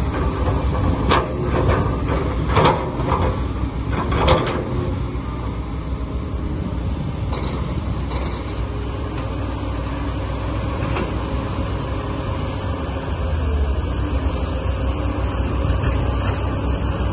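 Steady engine-like drone of a working remote-controlled construction machine, with several sharp clanks and knocks in the first four seconds or so.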